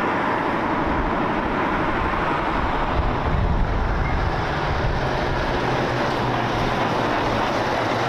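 Diesel engine of a Scania truck pulling a tanker semi-trailer, running steadily as it drives along the road, with tyre and road noise. The low rumble swells a little about midway.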